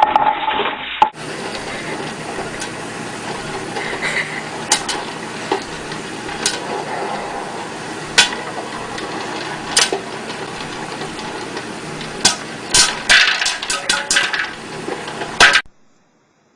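Scattered sharp clinks and clatters of hard objects, dish-like, over a steady background noise, with a quick run of them near the end.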